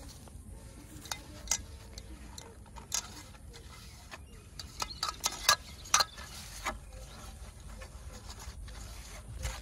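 Hand mixing fishing bait in a steel bowl: scattered sharp clicks and knocks of fingers and wrist against the metal bowl, clustered about the middle, with soft rubbing of the damp mix between them.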